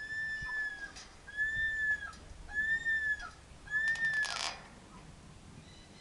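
A corella, a white cockatoo, whistles four even, clear notes in a row, each slightly arched in pitch and dipping at its end. A brief rustle follows the fourth note, then it goes quiet.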